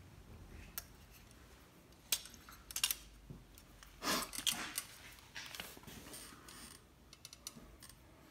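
Scattered small metallic clicks and clinks of a hex driver and Allen key working the screws of a compound bow's cam module, which is being repositioned to shorten the draw length. The loudest moment is a short, dense clatter about four seconds in.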